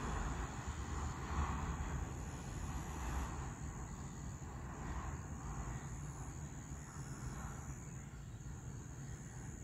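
Rumble of a long container train's wagons rolling away on the rails, fading slowly as it recedes, with insects chirring in a steady high-pitched buzz.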